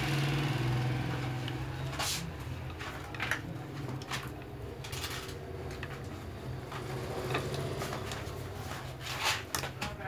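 Light metal clicks and knocks as the needle bar frame of a buttonholing machine is handled and fitted onto its pin, a few separate knocks with a small cluster near the end, over a low steady hum.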